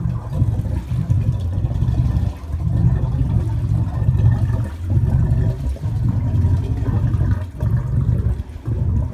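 Boat engine idling with a steady low rumble that rises and falls unevenly; the engine has just been brought back into service after winter storage and is running nice.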